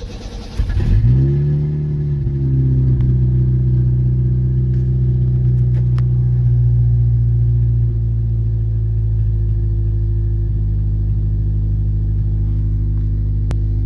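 Cold start of an old Ford Ranger pickup's engine, heard from inside the cab: the starter cranks briefly, the engine catches within a second, revs up and settles into a steady fast idle. About eight seconds in the idle drops slightly.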